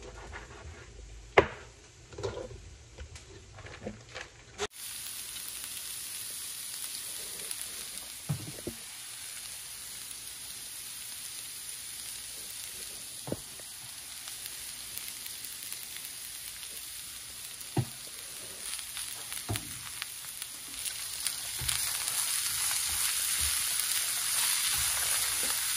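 Diced potatoes, onions and green peppers frying in a skillet: a steady sizzle, stirred with a spatula that now and then knocks against the pan, growing louder near the end. Before it, for about five seconds, a knife cuts raw bacon on a plastic cutting board, with a sharp knock near the start.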